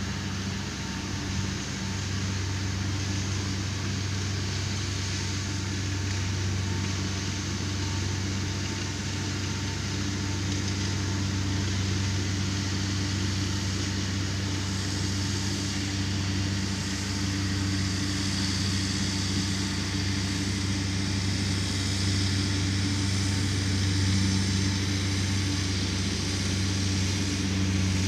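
John Deere tractor's diesel engine running steadily while it tows a mower cutting grass: a steady low drone that grows slightly louder toward the end.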